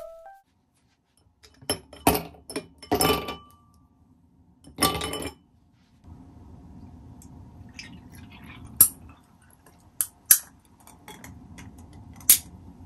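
Ice cubes clattering into a stemmed glass, then milk poured over the ice, a steady pouring sound broken by a few sharp clinks of ice against the glass.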